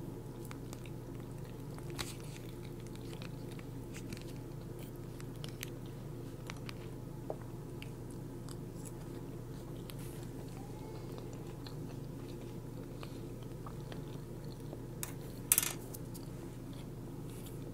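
Close-miked chewing and biting of fried fast food, with small wet clicks and one louder crunchy bite near the end, over a steady low hum.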